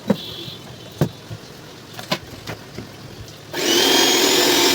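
A few light knocks and clicks of handling, then about three and a half seconds in a mixer grinder's motor switches on and runs loud and steady with a high whine.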